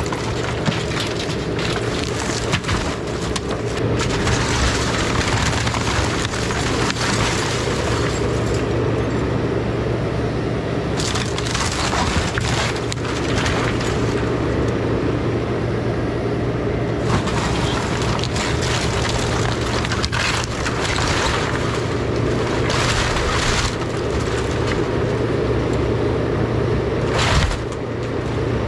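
Takeuchi TB2150 excavator's engine running steadily under load while its bucket and thumb tear into and crush a wooden house. There are repeated spells of wood cracking and splintering and debris crunching and falling.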